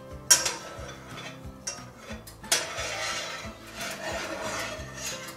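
Metal spoon stirring sauce in a small saucepan, scraping around the bottom and sides of the pan. It clinks sharply against the pan twice, about a third of a second in and about two and a half seconds in.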